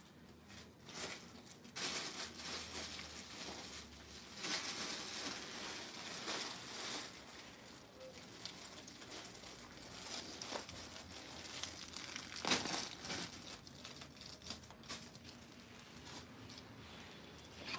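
Clear plastic packaging and folded suit fabric rustling and crinkling as they are handled, coming and going unevenly, with a sharper rustle about twelve and a half seconds in.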